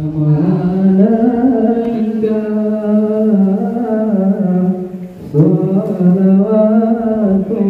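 A man chanting a slow, drawn-out vocal line, long held notes with ornamented bends in pitch and no audible accompaniment, breaking off briefly for a breath about five seconds in.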